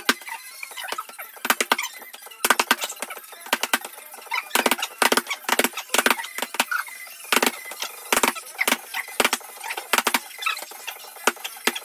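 Boxing gloves smacking into padded focus mitts: many sharp slaps in quick combinations of two or three punches, with short pauses between combinations.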